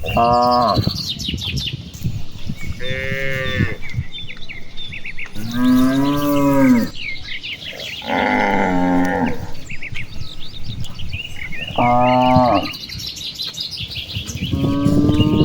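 Cattle mooing: about six drawn-out moos from several cows, some deep and some higher-pitched, coming one after another every couple of seconds. Birds chirp faintly in the background.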